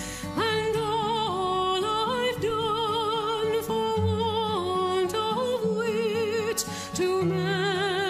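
Background music: a slow melody with strong vibrato over held chords that change about every second.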